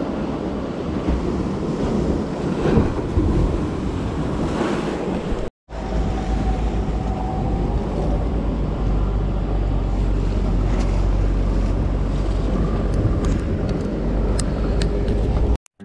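Sea surf washing against a rocky shore, with wind buffeting the microphone. The sound drops out briefly about five and a half seconds in, and the wind rumble is heavier after that.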